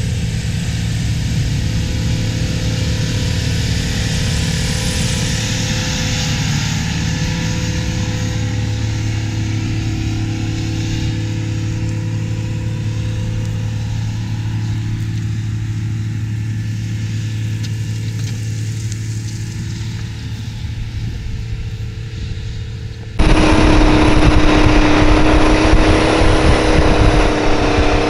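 Big Bud articulated tractor's big diesel engine running steadily under load as it pulls a wide moldboard plow past. About 23 seconds in, the sound cuts to a louder hum with several wavering tones, the aerial camera drone's propellers.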